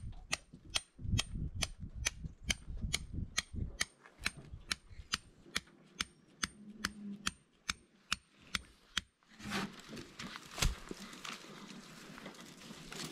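Sharp, evenly spaced clicks, about three a second, which stop about nine seconds in. A steady hiss follows, with one louder knock.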